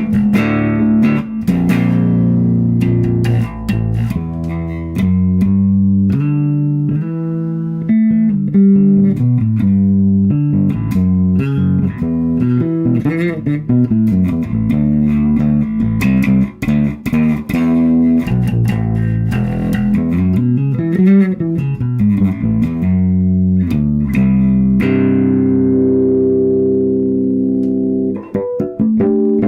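Electric bass guitar played through an Orange OBC 112 bass cabinet: a melodic run of single notes with a few bent notes, settling into longer held notes near the end.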